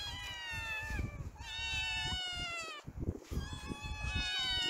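Several kittens meowing at once, high overlapping meows of about a second each in three bursts with short gaps between them, begging for attention or food.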